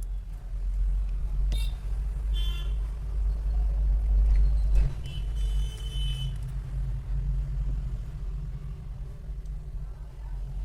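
Low rumble of road traffic with two vehicle horn toots, a short one about two seconds in and a longer one about halfway through.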